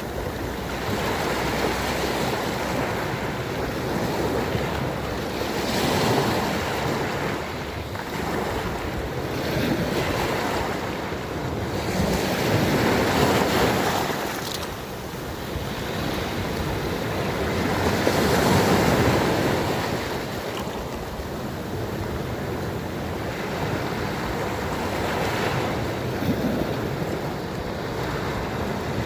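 Small sea waves breaking and washing in, the surf swelling and fading every few seconds.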